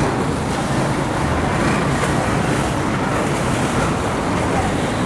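Steady road traffic noise, a continuous even hiss of passing vehicles with no single event standing out.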